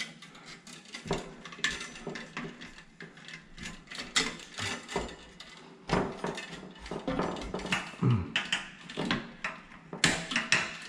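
Wire cutters snipping unused wires in a light fixture, among irregular clicks and knocks of tools and fixture parts being handled.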